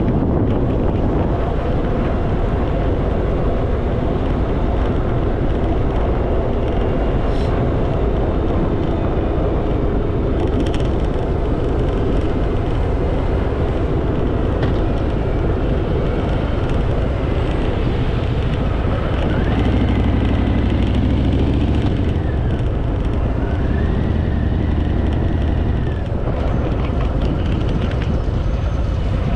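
Harley-Davidson Fat Boy's V-twin engine running steadily while riding, mixed with wind and road noise. A few brief gliding higher tones come in during the second half.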